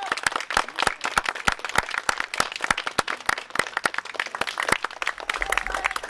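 A small group of people applauding, individual hand claps irregular and distinct rather than a dense roar.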